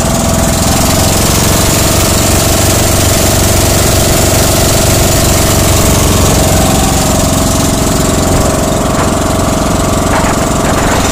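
Engine of a motorized outrigger fishing boat (bangka) running steadily as the boat travels along.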